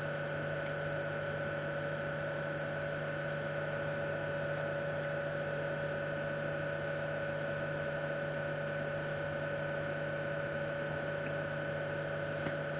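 A steady electrical hum under a high, wavering chorus of night insects. Two short runs of three quick high pips come a couple of seconds in and again near the end.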